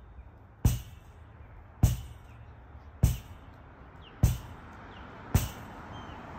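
Lacrosse ball thrown against a rebounder and caught in rapid repetition. There are five sharp smacks, evenly spaced about every 1.2 s.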